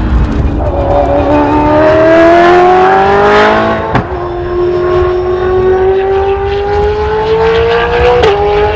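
Brabham BT62's 5.4-litre V8 race engine accelerating hard through the gears, its pitch climbing steadily, with an upshift about four seconds in and another near the end.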